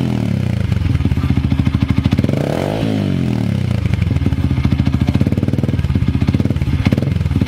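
Yamaha MX King's 150 cc single-cylinder four-stroke engine running through an Akrapovic-style aftermarket slip-on muffler. It is revved in short throttle blips, one about halfway through and smaller ones near the end, and each time it drops back to a pulsing idle.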